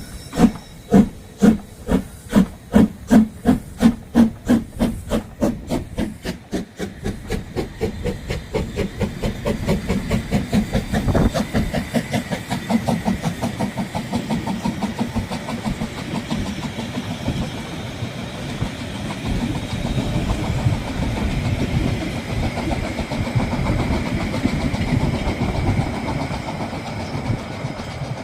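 Steam locomotive pulling away, its exhaust chuffs about two a second at first and quickening until they run together into a steady rumble and hiss as the train gathers speed.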